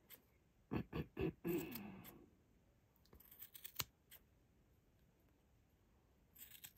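Small scissors snipping yarn while trimming a pom-pom: quick cuts in short bursts, a few around a second in, another cluster around three and a half seconds, and more near the end.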